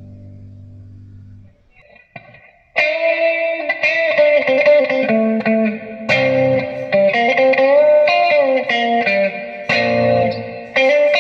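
Electric guitar with humbucker pickups played through a Vox VT40X modelling amp. A held chord rings out and fades, then after a short pause a new phrase of picked chords and notes comes in loud about three seconds in, with a bent note near the middle.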